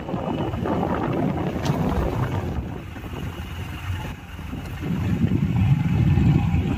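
Wind buffeting the microphone, a gusting low rumble that eases about three seconds in and swells again near the end.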